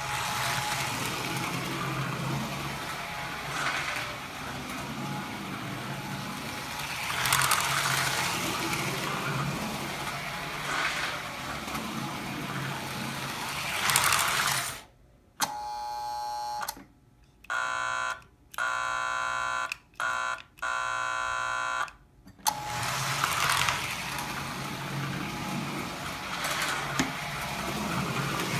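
American Flyer #405 Silver Streak toy diesel locomotive running round its track, a steady low motor hum under a running rattle that grows louder every few seconds. Around the middle a horn sounds about five short blasts with pauses between them over some seven seconds, and then the running noise resumes.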